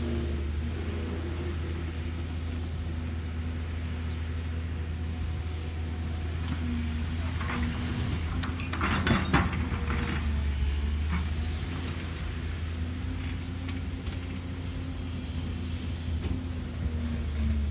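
Caterpillar excavator's diesel engine running steadily, with a burst of clanking and scraping, typical of the digging bucket working, about eight to ten seconds in.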